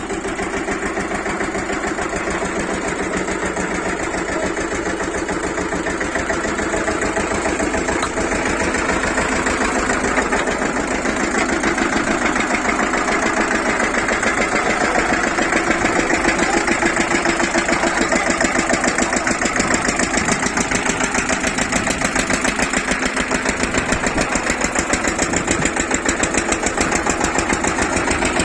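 Engine of a mini borewell drilling machine running steadily on trial with a fast even beat, getting somewhat louder after about eight seconds.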